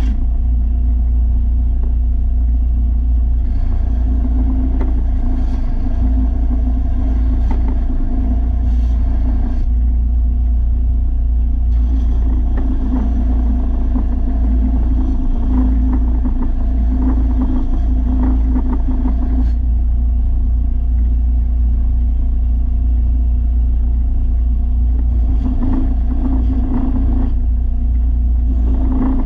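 A zero-turn riding mower's engine running steadily at constant speed, a deep rumble with a steady hum, and a hissier layer above it that comes and goes in several stretches.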